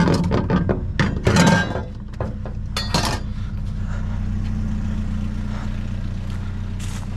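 A vehicle engine running steadily, with a run of metallic clanks and clinks over the first three seconds, loudest between about one and two seconds in, then fewer.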